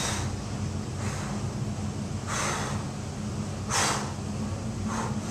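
A man breathing hard with effort: four or five short, forceful breaths and gasps, about one every second or so, as he strains under 65 lb of weight plates held overhead. A steady low hum runs underneath.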